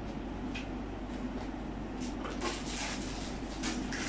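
Rustling and light knocks as plastic-wrapped sofa-bed parts are handled in their cardboard box, mostly in the second half.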